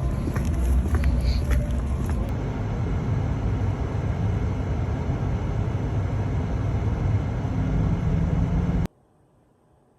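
Steady low road and engine noise of a car driving, with a few light clicks in the first couple of seconds; it cuts off abruptly near the end, leaving faint room tone.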